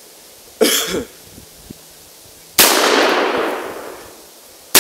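Two revolver shots about two seconds apart, the second near the end, each a sharp crack followed by a long echo dying away.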